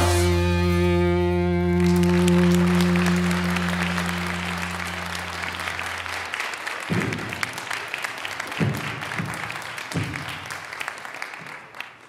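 The song's final chord is held and fades away over about six seconds while an audience applauds. The applause carries on alone after the chord and slowly dies down.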